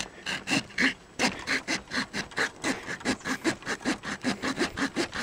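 Saw blade of a Victorinox One-Hand Trekker Swiss Army knife sawing through a thin bush honeysuckle branch with quick back-and-forth rasping strokes. A few strokes, a short pause about a second in, then a steady run of about five strokes a second.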